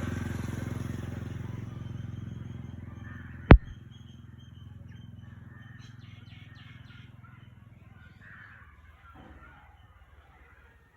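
A motor vehicle engine running with a steady low hum that fades away over several seconds, cut by one sharp loud click about three and a half seconds in; birds chirp faintly.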